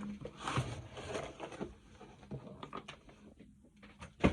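Soft rustling and light taps as a vinyl record is handled out of its packaging, with a sharper click near the end.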